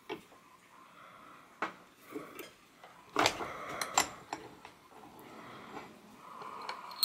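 Bench vise being cranked shut on a socket and ratchet head to press a new bushing into the ratchet: a string of sharp metal clinks and clanks, loudest about three to four seconds in.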